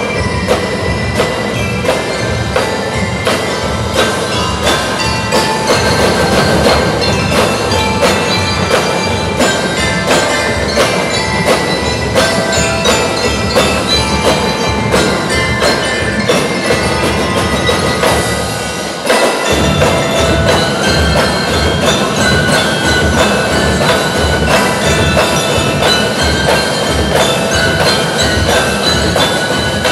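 A drum and lyre band playing live: snare and bass drums beat a driving rhythm under bell lyres ringing out a melody. The drums drop out briefly about two-thirds of the way through, then the whole band comes back in together.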